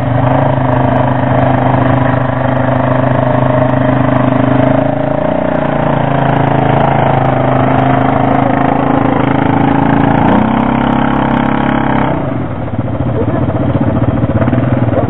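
Quad (ATV) engines running at a steady, nearly constant speed in the mud, with a slight drop in pitch about five seconds in and a change in the engine sound about twelve seconds in.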